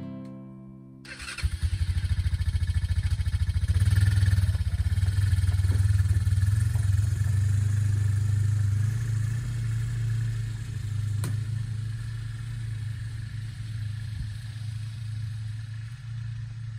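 Quad ATV engine starting up about a second in, then running as the ATV pulls away, its sound fading slowly as it drives off.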